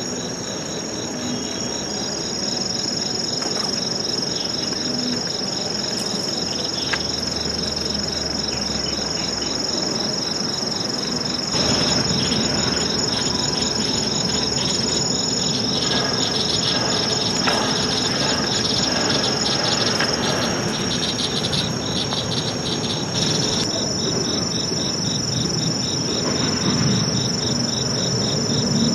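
Chorus of insects: a continuous high-pitched trill with rapid pulsed chirping beneath it, growing louder about twelve seconds in.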